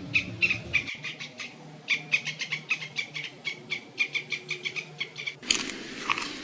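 An animal chirping: a rapid run of short, high squeaky chirps, about four or five a second. About five and a half seconds in they stop and a broader, noisier sound takes over.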